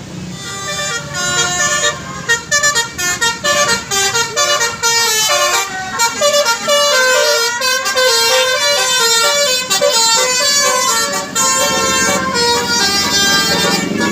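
A bus's Basuri multi-tone musical air horn playing a 'telolet' melody: a fast run of short pitched honks stepping up and down. It starts about a second in, choppy at first, and becomes almost continuous over the second half.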